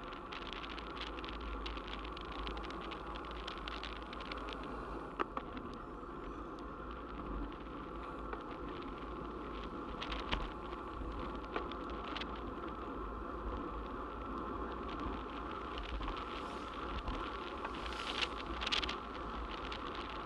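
Wind and road noise from a moving road bicycle, with a steady buzz and a low rumble underneath. A few sharp clicks and rattles break in now and then, the loudest a cluster near the end.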